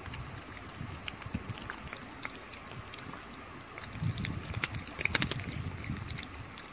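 A kitten chewing and licking at a chocobar ice-cream stick: scattered small clicks and crunches, most of them about four to five seconds in, over a low rumble.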